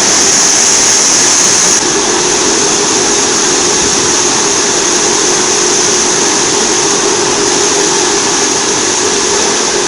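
Vegetable washing machine running: a steady hum under a loud, even hiss. The sound shifts slightly and drops a little about two seconds in.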